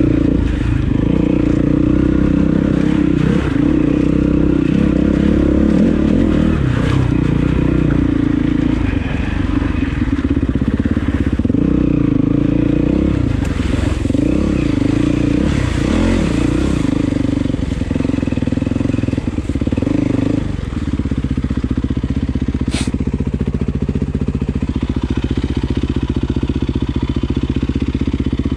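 Enduro motorcycle engine ridden on a dirt trail, revving up and down with the throttle. About twenty seconds in the revs drop and it runs steadily at low speed, with one sharp click a couple of seconds later.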